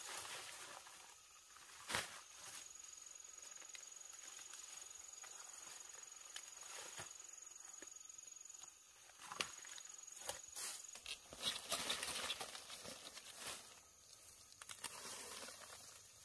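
Quiet outdoor sounds: a thin, steady high whine that breaks off twice and stops about two-thirds of the way through, with scattered sharp knocks and a busier stretch of rustling and clicks near the end.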